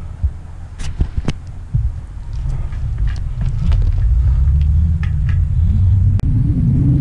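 Low rumble of wind and handling noise on a wrist-strapped action camera's microphone as it moves over asphalt, growing louder about two seconds in, with scattered sharp clicks and knocks from the strap and mount.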